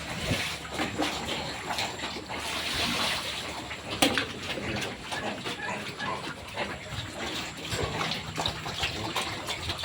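Pigs eating at a feeding trough: continuous wet chewing and slurping, with scattered clicks and a sharper knock about four seconds in.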